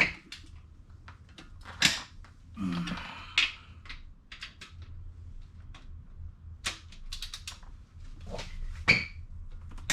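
Irregular clicks, taps and knocks of hand tools and metal engine parts being handled, with a short squeak near the end.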